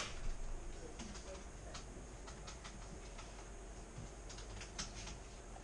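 Faint, irregular clicking of typing on a computer keyboard, several keystrokes a second, over a steady low room hum.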